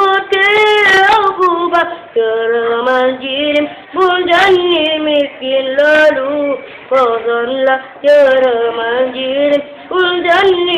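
A young girl's voice chanting a recitation in a sung, melodic style, with long held and gliding notes in short phrases broken by quick breaths.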